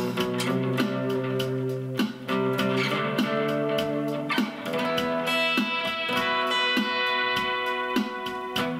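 Acoustic guitar played through a Zoom G1 Four effects pedal into a Roland Cube-10 amp set to JC Clean with a touch of reverb. Plucked notes and chords ring on and overlap one another.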